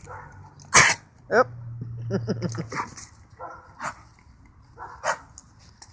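A dog growling low while mouthing and chewing a soccer ball, with two short, sharp snorts, one about a second in and one about five seconds in.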